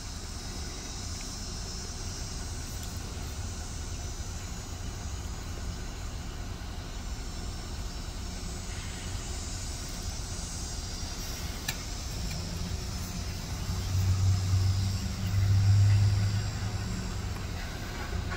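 A motor vehicle passing on the road, its low engine hum swelling and then fading over a few seconds near the end, over a steady low rumble of outdoor noise.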